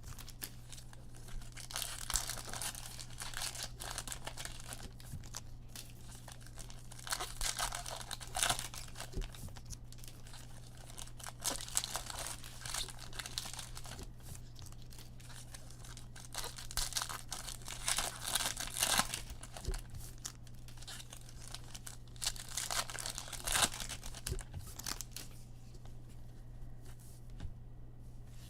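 Foil trading card pack wrappers being torn open and crinkled by hand, in bursts every few seconds, over a steady low hum.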